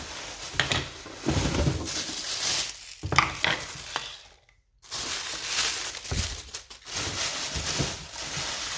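Plastic blender parts and their packaging being handled while unboxed: rustling and crinkling with scattered light knocks of plastic, broken by a short silence about halfway through.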